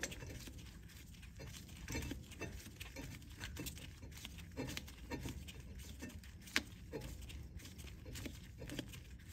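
Screw-type brake caliper piston compressor tool being turned by hand, pushing the rear caliper piston back in. It makes faint, irregular metal clicks and scrapes, with one sharper click about six and a half seconds in.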